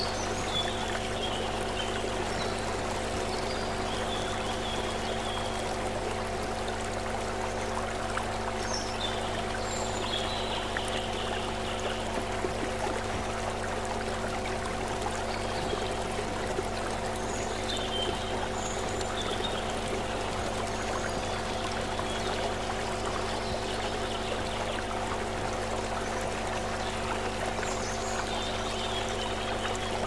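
Shallow stream running over rocks: a steady rush and trickle of water, with a low hum of several held tones underneath.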